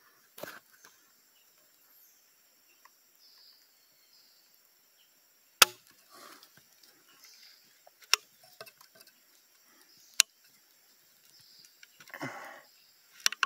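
Four sharp, single clacks a few seconds apart, with faint rustling between and a short scraping noise shortly before the last clack.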